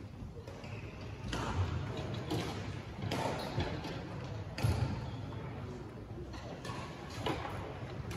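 Irregular sharp knocks and thuds from a singles racket-sport match being played, several of them close together, the loudest pair a little past halfway, with faint voices underneath.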